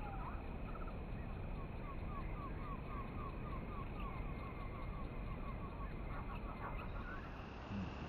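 Steady outdoor background noise with a rapid run of short, evenly repeated chirps, about three a second, that die away near the end.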